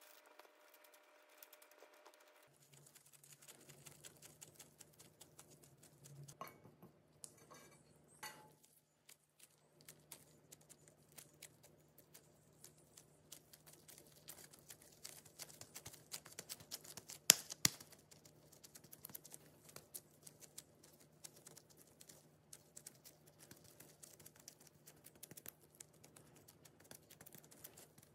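Faint crinkling and soft irregular ticks of disposable plastic gloves handling and shaping mashed-potato dough, with one sharper click about two-thirds of the way through. A low steady hum starts a couple of seconds in.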